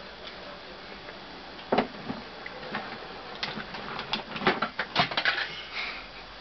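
Rummaging through a make-up bag: an irregular run of clicks, knocks and light rattles of cosmetic containers and tools being handled, starting about two seconds in.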